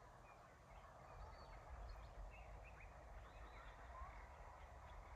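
Faint bird calls: several birds giving short, scattered chirps and calls over a low background rumble.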